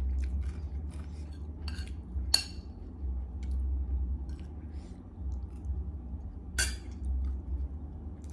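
Spoon and fork clinking and scraping on a dinner plate and dishes during a meal, with two sharper clinks about two and a half and six and a half seconds in. A low steady hum runs underneath.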